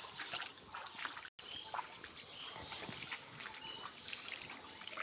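Shallow floodwater lapping and trickling, with small irregular splashes. A quick run of short high chirps comes about three seconds in.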